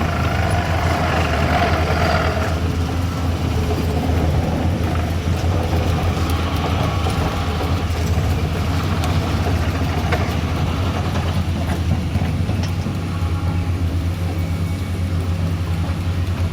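Vehicle engine running steadily with an even low hum, without revving.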